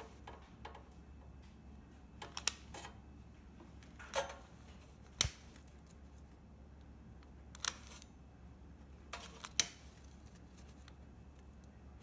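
Long-nosed butane lighter's igniter clicking several times, a second or two apart, as it is lit in short spurts.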